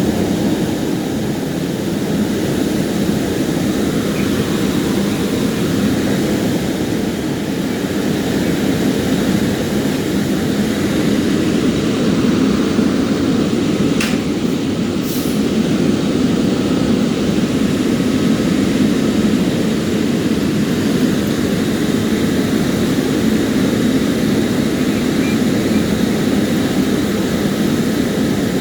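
Steady low mechanical drone of a running engine, unbroken, with two faint short ticks about halfway through.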